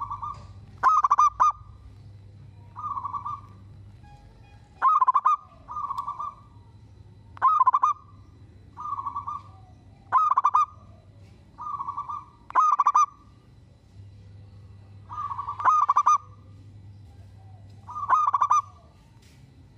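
Zebra dove (perkutut) cooing: about a dozen short, clipped phrases repeated every second or two, alternately louder and softer.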